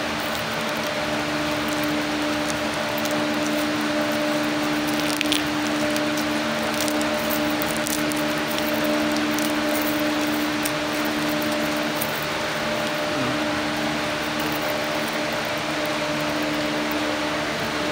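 Steady motor hum with a fixed low tone over an even hiss, with a few faint clicks around the middle as a metal watch bracelet is handled.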